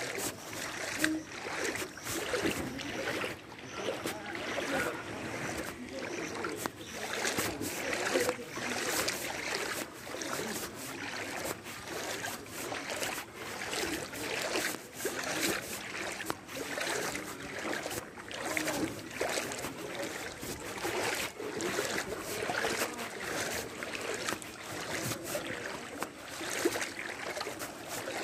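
Shallow floodwater sloshing and splashing in repeated surges, roughly one every second or two, as someone moves through it.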